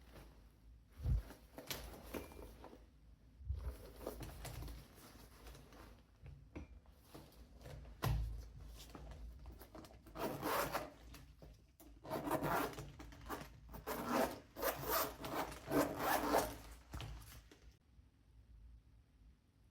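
Irregular rubbing and scraping strokes from hands working the leather pochette, with a dense run of quick strokes in the second half before they stop near the end.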